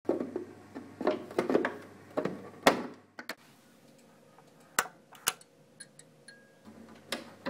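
Foley sound effects: a quick run of sharp knocks and clicks for about three seconds, then a few scattered clicks over a quieter stretch with a faint thin tone.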